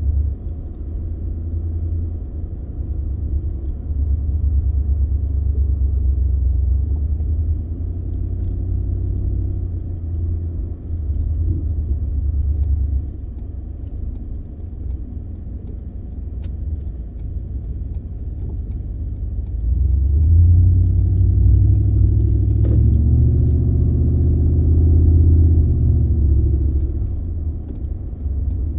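A 2015 Ford F-150's 5.0-litre V8 running while driving, over a steady low road rumble. About two-thirds of the way through, the engine pulls harder, its pitch rising and then easing off. It runs smoothly with no stutter or hesitation on its new stock throttle body.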